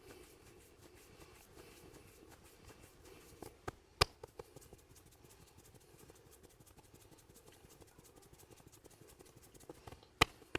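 Hands rubbing a scalp during a head massage, a soft, fast scratchy friction. Sharp cracks cut through it: three in quick succession about three and a half seconds in, the last the loudest, and two more near the end.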